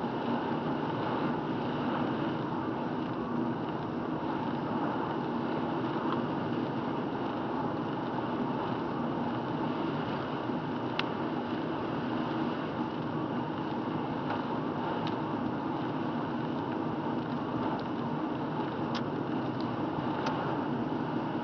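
Steady road and engine noise of a car driving on a wet road, heard from inside the cabin, with a few faint ticks in the second half.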